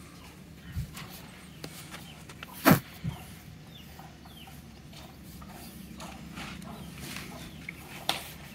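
Chickens clucking, with scattered small knocks and one loud, sharp thump a little under three seconds in.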